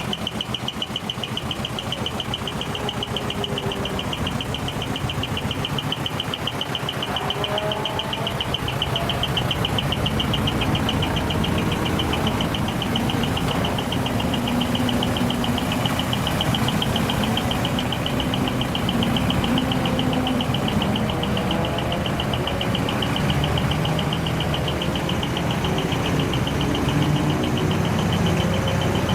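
Heavy truck engine running steadily with a fast even pulse, growing louder about ten seconds in.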